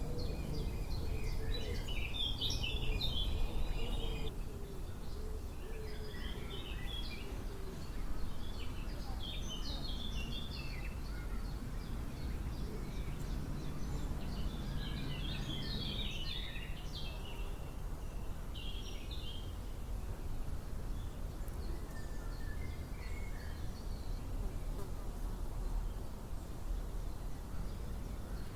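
Birds singing in short twittering phrases every few seconds over a steady low background rumble, with an insect buzzing past in the first few seconds.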